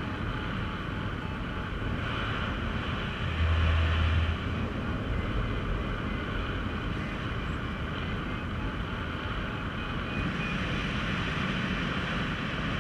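Wind rushing over an action camera's microphone during a tandem paraglider flight, a steady noise with low buffeting rumble. The buffeting strengthens into a louder gust about three and a half seconds in.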